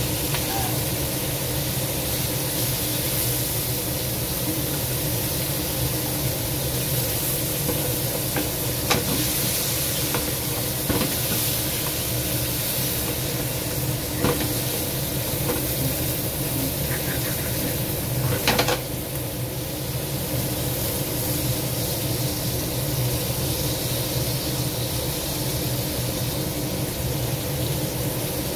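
Crab pieces sizzling as they fry in a nonstick wok, over a steady low hum. Tongs click against the pan now and then, loudest about two-thirds of the way through.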